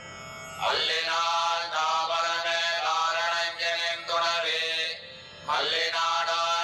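Devotional chanting with music: a voice chants in repeated phrases of about a second each, beginning just under a second in and pausing briefly around five seconds in.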